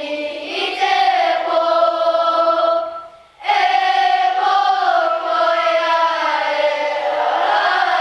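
Children's kapa haka group singing a Māori waiata together, long held notes; the singing breaks off briefly about three seconds in, then carries on.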